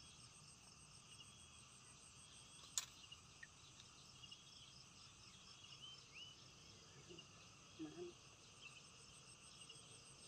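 Faint, steady chorus of crickets and other insects, with one sharp click about three seconds in and a few brief chirps.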